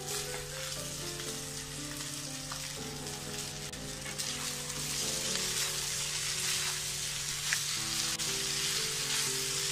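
Egg noodles stir-frying in a hot pan over a high gas flame: a steady sizzle that grows louder about halfway through, as soy sauce goes in and a spatula tosses the noodles, with a few light knocks of the spatula against the pan near the end.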